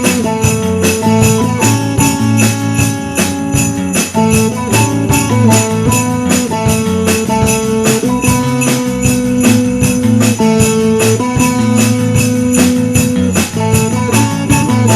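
Upbeat Christmas music led by sleigh bells shaken in a steady rhythm, over sustained chords and a bass line.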